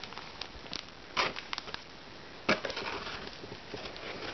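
Clear plastic bag crinkling and rustling as it is handled, in irregular crackly bursts, the loudest about a second in and again about two and a half seconds in.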